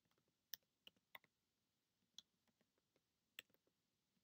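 Near silence broken by about five faint, sharp clicks at irregular intervals.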